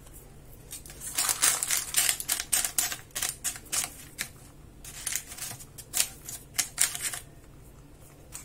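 Crisp crackling and rustling of butter paper lining a cake tin, with a silicone spatula pressing and smoothing a thick barfi mixture in it. The crackling comes in two busy spells, about a second in and again around five seconds in.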